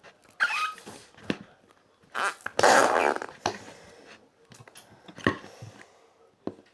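Slime being squeezed and worked by hand, squelching in several short bursts, the longest and loudest about two to three seconds in.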